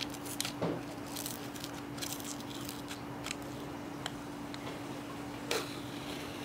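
Protective plastic film being peeled off a sump drip tray: faint crackling and rustling with scattered small clicks of handling, a slightly louder rustle about half a second in and another about five and a half seconds in. A faint steady hum runs underneath.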